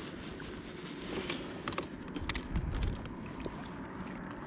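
Fishing tackle being handled by hand: scattered light clicks and taps, over a low rumble of wind on the microphone that swells about halfway through.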